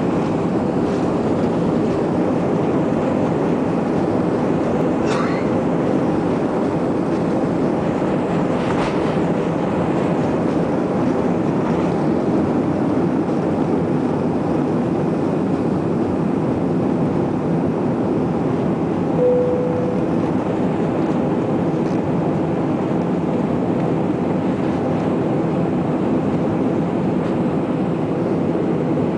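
Jet airliner cabin noise during the takeoff roll and liftoff: the engines at takeoff power and the wheels on the runway make a steady, loud rumble. A short, steady tone sounds about two-thirds of the way through.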